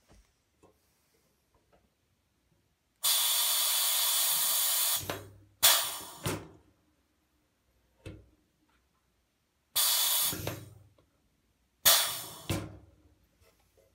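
Pneumatic rivet squeezer setting solid rivets twice: each cycle is a steady hiss of compressed air lasting a second or two, followed by two sharp bursts close together.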